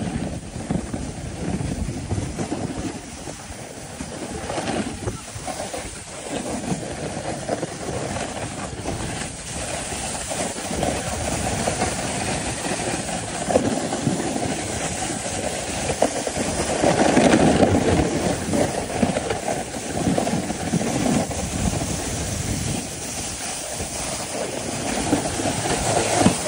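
A sled sliding fast down a packed-snow track: a steady rumbling scrape of the sled on snow, jolted by many small bumps, loudest about two thirds of the way through.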